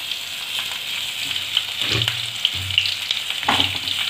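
Hot oil sizzling and crackling in a kadhai as boiled potatoes are set into it one at a time, with a few soft thuds about halfway through and near the end as each potato goes in.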